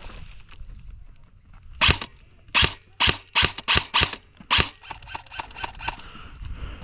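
Airsoft gun firing a string of about seven single shots, sharp cracks spaced unevenly two to three a second, starting about two seconds in, with fainter ticks after them.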